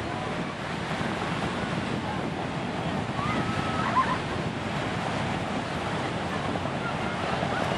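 Steady rushing noise: wind on the microphone blended with the distant rotor wash of a Boeing CH-47 Chinook twin-rotor helicopter.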